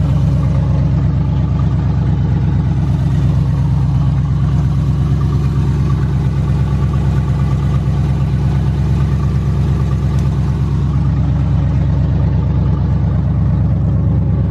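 1992 Chevrolet Camaro's engine running steadily at a low, even speed.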